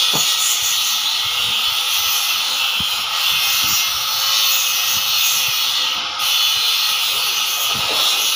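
Steady hissing machine noise with a faint low hum, dipping briefly about six seconds in.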